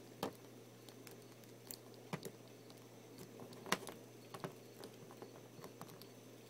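Faint, irregular clicks and taps of hard plastic as a Lion-O action figure's parts are handled and fitted into place, over a faint steady hum.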